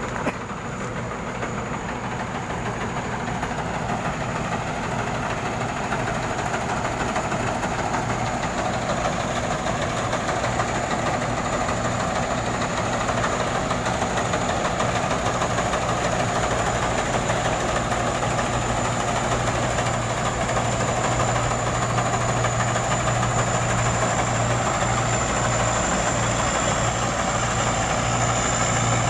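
Thai Seng Yont combine harvester running steadily as it cuts rice, with a steady engine hum and a thin high whine. It grows louder over the first several seconds as it comes closer.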